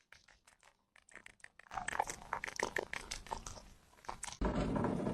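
An animal chewing something crunchy: a quick, irregular run of crisp bites and crunches. Near the end a steady background noise cuts in abruptly.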